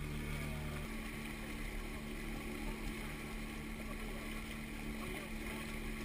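Motorboat engine running steadily with the wake splashing and rushing alongside the hull. The engine's low hum lightens about a second in.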